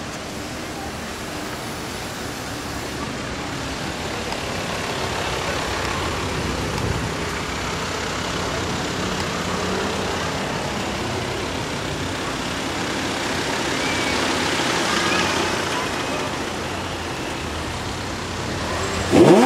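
Street traffic noise: a steady mix of passing engines and road noise with faint voices. Just before the end, a car engine is revved hard in a sharp rising rev.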